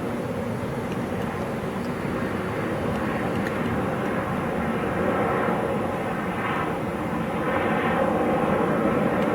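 Steady low rumble like a distant engine or aircraft, swelling slightly in the second half.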